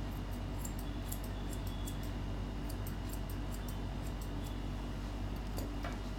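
Steel grooming scissors snipping through a Maltese's white coat in quick, irregular crisp snips, several a second, that stop just before the end. A steady low hum runs underneath.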